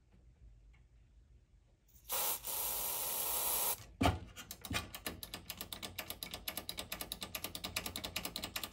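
Aerosol contact cleaner spraying through its nozzle straw into a receiver's push-button speaker selector switch, a hiss of under two seconds. Then a knock and a fast run of clicks as the switch is pressed in and out to work the cleaner through its contacts.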